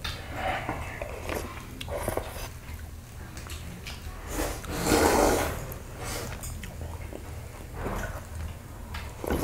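Noodles being slurped from a stainless steel bowl: short slurps, with one long loud slurp about five seconds in.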